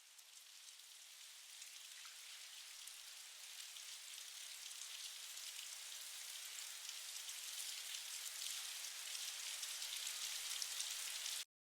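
Rain falling, a steady hiss of fine drops pattering, growing gradually louder and then cutting off abruptly near the end.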